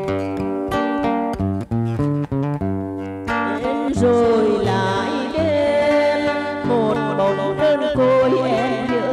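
Acoustic guitar plucking a melody on its own for about three seconds, then a woman's voice comes in singing with vibrato over the guitar accompaniment.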